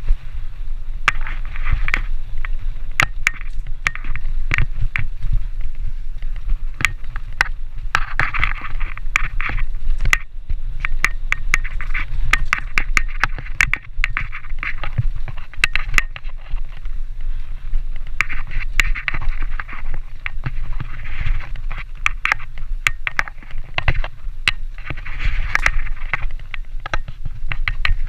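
Continuous rumble and rush of a bike ridden fast over rough dirt singletrack, recorded by a camera mounted on the bike, with frequent rattling knocks and clicks as it hits bumps.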